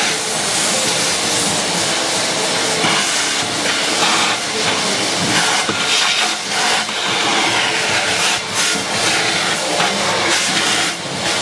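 Vacuum cleaner running with a steady hiss of suction as its hose nozzle is worked along the floor and into the corners of a fibreglass mould; the sound dips briefly a few times.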